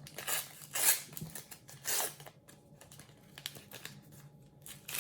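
A Topps sticker packet being handled and torn open, with three sharp crinkly rasps of the wrapper in the first two seconds, then lighter rustling.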